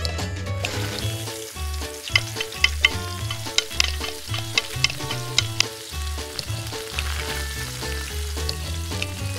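Chopped vegetables sizzling in hot oil in a miniature steel wok, stirred with a small metal spoon that clicks against the pan in a run of sharp taps through the middle. Background music with a steady bass beat plays over it.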